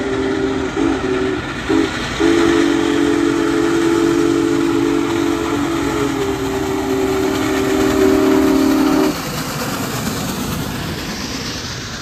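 Union Pacific Big Boy 4014's chime steam whistle sounding a chord of three notes. A blast ends within the first second, two short blasts follow, then a long blast holds for about seven seconds and cuts off sharply. The steady rumble and hiss of the moving train runs underneath and carries on after the whistle stops.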